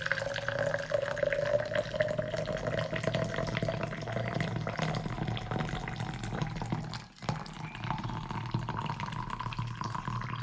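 Water poured into the water chamber of a Wacaco Pipamoka portable coffee maker, its pitch rising slowly as the chamber fills. The pour breaks off for a moment about seven seconds in, then goes on at a higher pitch as the water nears the fill line.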